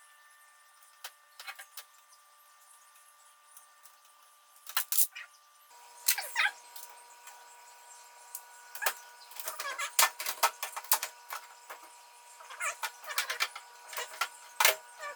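Irregular light clicks, knocks and clatter of plant pots and shelf parts being handled and moved, sparse at first and busier from about six seconds in, over a faint steady tone.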